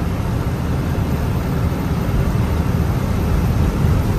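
Loaded goods truck driving along a highway: its engine and road noise make a steady low rumble.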